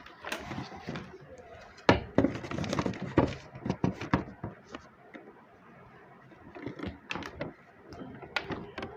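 PVC pipe pieces and fittings being handled and knocked together: irregular plastic clicks and knocks, with a sharp knock about two seconds in.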